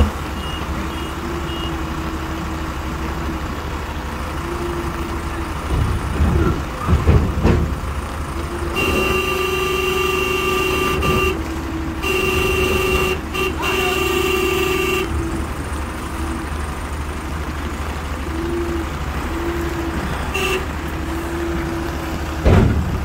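Diesel engines of backhoe loaders and a heavy tipper truck running together, with a reversing alarm beeping near the start and louder rumbling surges around six to eight seconds in. A vehicle horn sounds in two long blasts, about nine and twelve seconds in.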